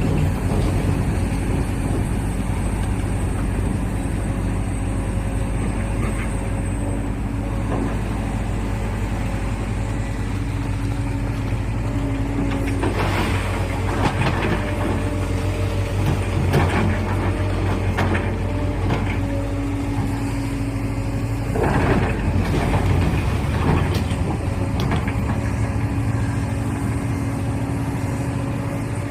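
Caterpillar 365 hydraulic excavator's diesel engine running steadily, with bursts of clanking and scraping about halfway through and again later.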